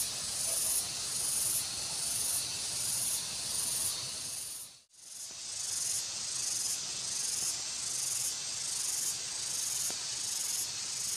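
A high insect buzz from the rice fields, swelling and fading in an even pulse a little faster than once a second. It breaks off for a moment about five seconds in and then picks up again.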